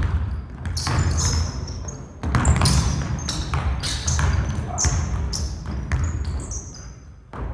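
A basketball dribbled hard on a gym floor, about two bounces a second, with short high sneaker squeaks as the players cut and change direction.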